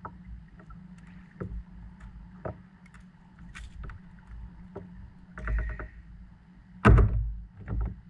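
Scattered knocks and clicks as a freshly caught bluefish and gear are handled on a kayak. There is a short rattle about five and a half seconds in and a loud thump about seven seconds in.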